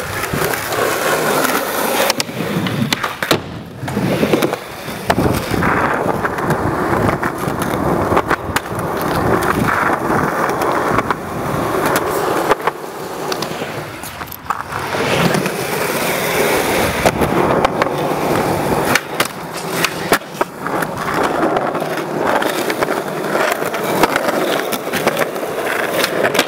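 Skateboard wheels rolling on smooth concrete with a steady hiss. Sharp clacks come again and again as the board's tail pops and the board slaps down on landings.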